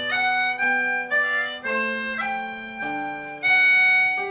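Harmonica solo: a slow melody of held notes changing about every half second, the loudest and longest note coming near the end.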